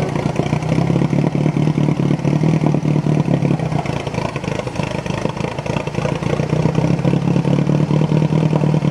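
Car engine running steadily, with an even pulsing beat and no revving.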